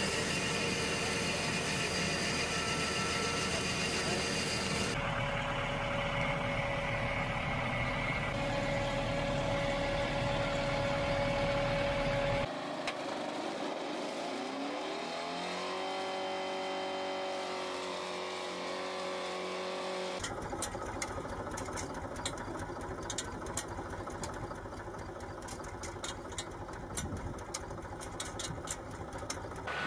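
Tractors and farm implements running in field work, in several short clips one after another, so the engine sound changes suddenly a few times. Partway through, one engine's pitch rises. In the last third, a steady run of sharp clicks and rattles sits over the engine.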